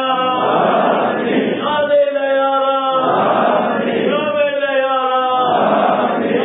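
A group of men chanting dhikr together in a steady rhythm: a held, sung phrase alternating with a rough, breathy chanted syllable, switching about every second and a half.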